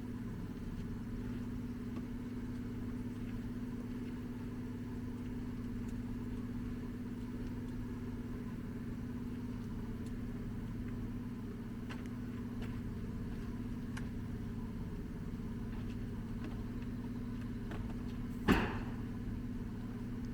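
An engine idling steadily with a low, even hum. A single sharp knock sounds near the end.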